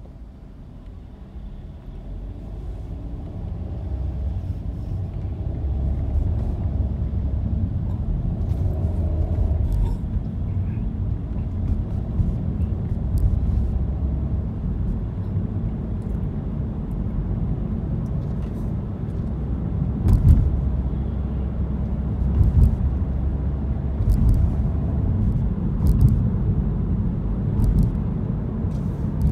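Car driving, heard from inside the cabin: a steady low rumble of engine and tyres that grows louder over the first few seconds as it picks up speed, with a few sharp thumps later on.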